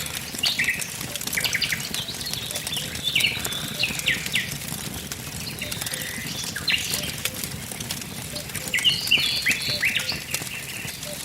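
Wood fire crackling with sharp scattered pops over a low steady rush, while small birds chirp and sing in quick repeated phrases throughout.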